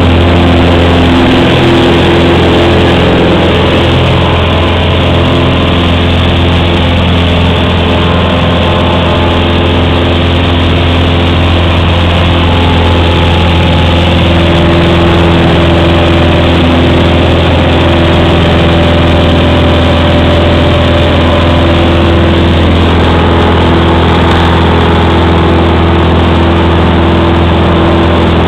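Cessna 182's six-cylinder piston engine and propeller at full takeoff power, heard from inside the cabin: a loud, steady drone through the takeoff run and climb.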